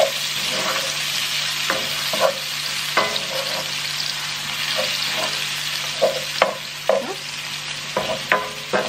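Diced onions sizzling in hot oil in a nonstick frying pan, sautéing in the fat left from browning beef. A wooden spoon scrapes and knocks against the pan in short, irregular strokes as the onions are stirred.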